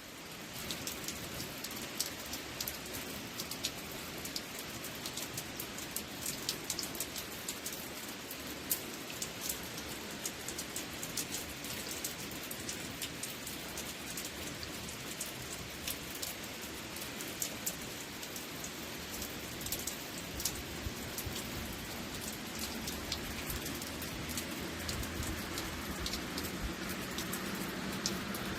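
Waterfall: a steady rush of falling water with many small crackling splashes, growing a little fuller and louder toward the end.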